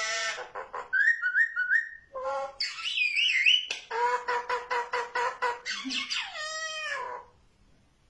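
Myna calling in a quick run of varied sounds: rapid clicking trills, three short rising whistles, a warbling phrase, then a stretch of evenly repeated pulses over a steady pair of tones and a few falling sweeps. This is phone-like sound imitated by the bird, ringtone mimicry. The calling stops about seven seconds in.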